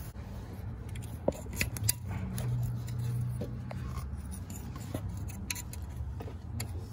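Scattered light clicks and scrapes of handling in an engine bay, over a low steady hum that swells briefly a couple of seconds in.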